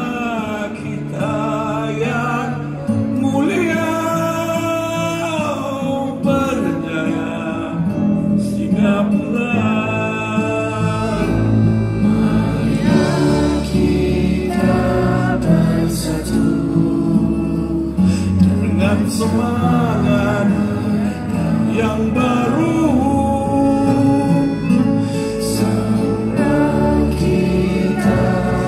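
A song with a singing voice and instrumental accompaniment played over a stadium's loudspeaker system, a deep bass line coming in about eleven seconds in.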